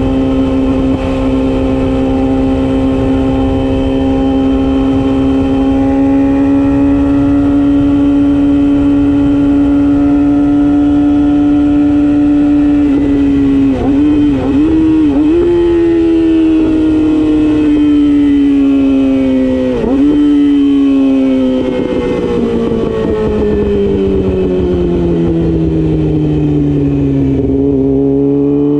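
Yamaha YZF-R6 inline-four sport bike engine running at high revs, its pitch held steady for a long stretch. About halfway it wavers briefly, then dips sharply once, before falling steadily as the bike slows and rising again right at the end.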